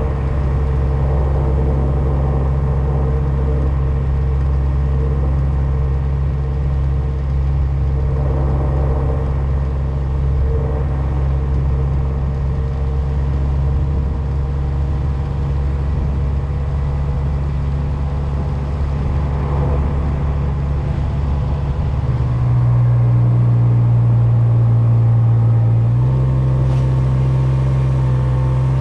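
Kubota X1120D side-by-side's three-cylinder diesel engine running steadily while driving. The engine note rises and gets louder about 22 seconds in, then shifts again about four seconds later.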